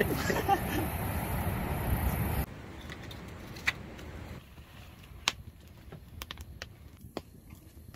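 Steady rushing background noise for about two seconds, then a wood fire burning in a steel fire pit, crackling with scattered sharp pops.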